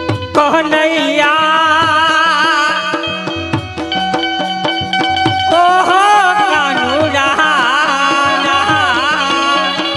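Traditional Gujarati folk music: an ornamented, wavering melody over a steady hand-drum rhythm.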